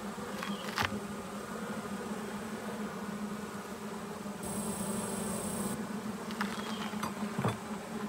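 Honey bees humming steadily over an open hive, a low even buzz. Two sharp clicks, about a second in and near the end, come from a metal hive tool prying at the wooden frames.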